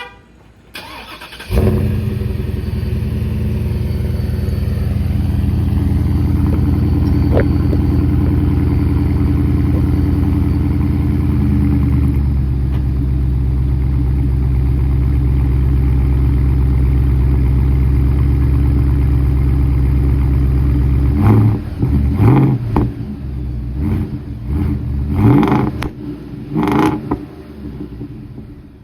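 2023 Ford F-250's 6.8-litre gas V8 through a Borla S-Type exhaust. It cranks and starts about a second and a half in, runs at a fast idle, then settles to a lower idle about twelve seconds in. Near the end it is revved in a series of short blips.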